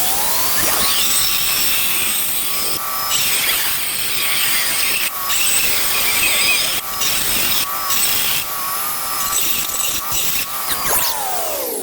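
Power tool with a diamond blade dry-cutting stone tile: the motor whines at speed with a gritty grinding noise, dips briefly a few times as the blade bites, and winds down near the end.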